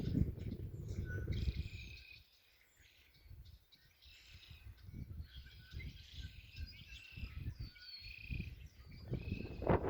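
Small birds chirping over gusts of wind rumbling on the microphone. The wind drops away about two seconds in and rises strongly again near the end.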